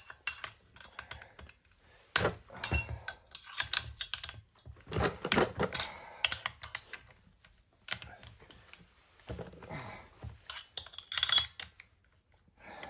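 Irregular clicks, clinks and rattles of a T-handle driver and small metal and plastic parts as an aftermarket Husqvarna 372XP chainsaw is taken apart by hand, coming in several short flurries.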